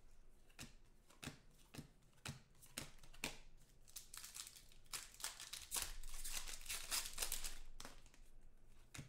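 Foil trading card pack wrappers being torn open and crumpled by hand, with irregular sharp crackles and a denser stretch of crinkling about two-thirds of the way through.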